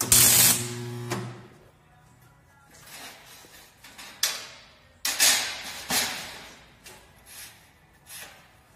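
Electric welder tack-welding steel bars: a crackling arc burst of about a second with a steady electrical hum under it, then a few shorter, quieter bursts.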